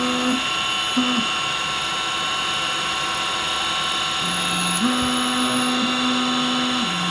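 Mini CNC lathe running: the spindle drive gives a steady high whine while a finishing tool turns an aluminium workpiece. A lower feed-motor hum comes in briefly near the start and again from about four seconds in, holding a steady pitch and stepping down near the end, as the axis feeds the tool.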